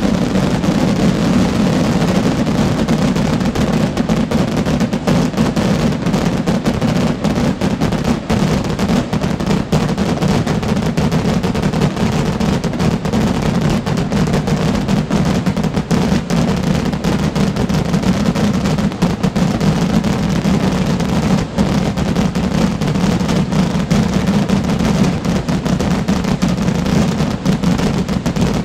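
Massive firework barrage of exploding rockets (voladores), the bangs so close together that they merge into one steady, unbroken din with no pause.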